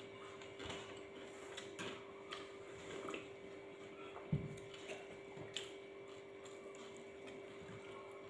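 Quiet sounds of eating by hand at a table: scattered light clicks and taps of fingers working rice and bowls being handled, with one louder thump about four seconds in, over a steady background hum.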